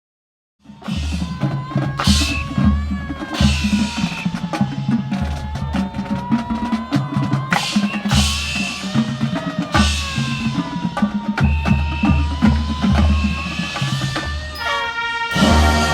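Marching band drumline starting up just under a second in, pounding bass drums and snares, with a slow siren-like wail rising and falling over the beat. Near the end the brass come in on a held chord.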